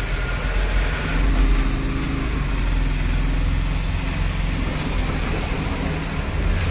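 Steady low rumble of road traffic, with a vehicle engine's hum standing out for a couple of seconds about a second in.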